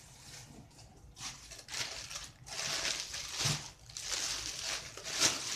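Thin plastic bags of raw meat crinkling and rustling as they are lifted and handled, in uneven spurts, with a soft thud about three and a half seconds in.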